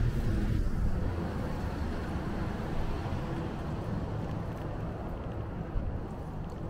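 City street traffic noise: a motor vehicle's low engine hum dies away at the start, leaving a steady traffic rumble that slowly fades.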